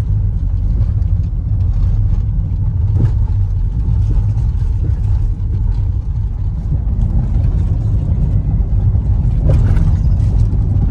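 A car driving, heard from inside the cabin: a loud, steady low rumble of engine and road noise.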